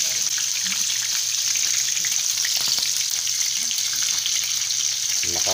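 Dalagang bukid (redbelly yellowtail fusilier) pieces frying in hot oil in a pan: a steady sizzle with many small crackles, over a low hum.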